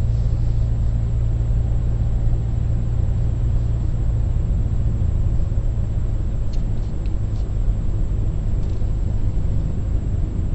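Steady low rumble of a car driving along, engine and road noise heard from inside the cabin.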